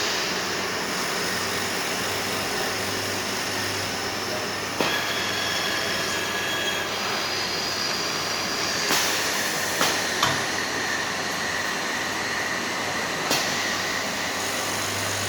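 Vacuum silicone paint dosing machine running with a steady hiss and hum and faint whines that change pitch a few times, broken by several sharp clicks.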